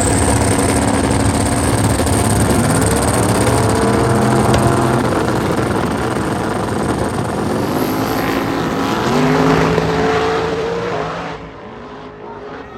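Race cars at full throttle making a drag-race pass after the launch. The engines climb in pitch and step through gear changes under a high steady whine, then the sound falls away sharply about eleven seconds in as the cars get far down the track.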